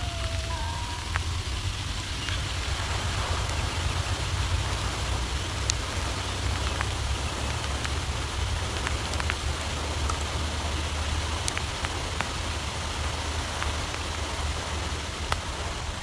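Steady hiss of rain on a pond together with the spray of a jet fountain rising, over a low rumble, with occasional sharp ticks.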